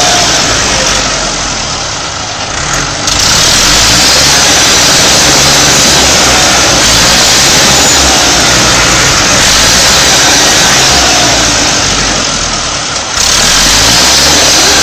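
Tractor engine running hard at high revs while trying to pull free of mud, loud and rough, easing off twice and coming straight back up.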